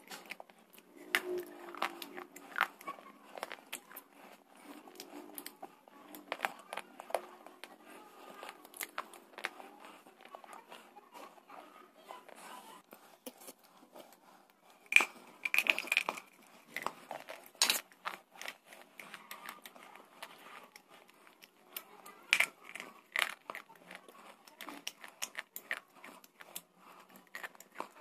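Slate bars and thick red clay paste being bitten and chewed close to the microphone: irregular crisp crunches and crackles, with a cluster of the loudest crunches about halfway through.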